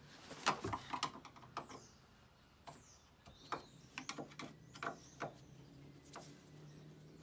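Scattered clicks and light knocks of a hand screwdriver tightening the self-tapping screws that fix a 240 V hook-up socket under a van's rear bumper, the loudest knock about half a second in. Birds chirp briefly in the background.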